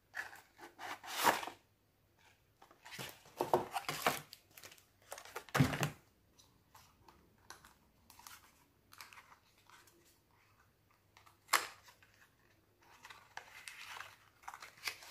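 Product packaging handled and opened by hand: irregular bursts of rustling with short pauses between, a few of them louder.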